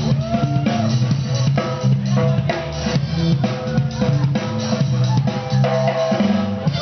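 Dance battle beat played loud over the PA: a drum-kit beat with kick and snare under a bass line and a melody.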